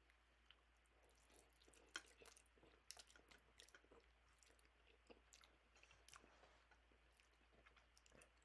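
Faint mouth sounds of a person eating instant noodles: a run of small wet clicks from chewing and slurping, densest between about one and six seconds in.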